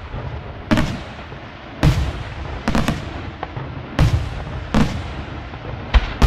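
Aerial firework shells bursting: about seven sharp bangs, irregularly spaced and one to two per second, two of them close together near the middle. Each bang is followed by a low, lingering echo.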